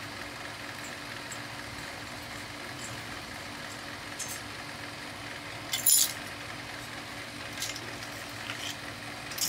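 Scattered metal clinks of tools and scrap metal being handled, the sharpest a double clink about six seconds in. Under them runs a steady low hum.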